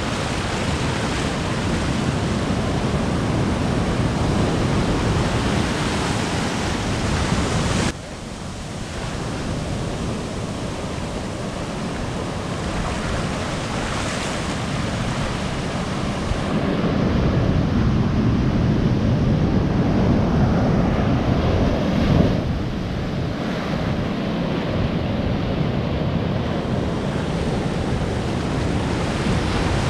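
Heavy ocean surf breaking and washing around the shallows at the water's edge, a continuous rushing noise. It drops suddenly about eight seconds in, then swells louder with a deeper rumble through the second half.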